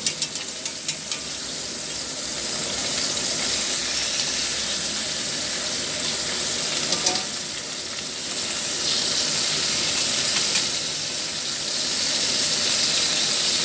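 Fish frying in hot oil in a pan: a steady sizzle with a quick run of crackling pops in the first second, the sizzle growing louder again about nine seconds in.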